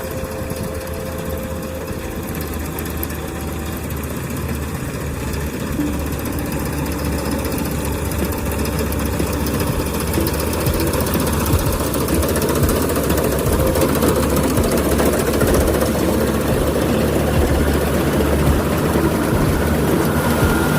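Rice combine harvester's diesel engine running steadily, growing gradually louder about halfway through.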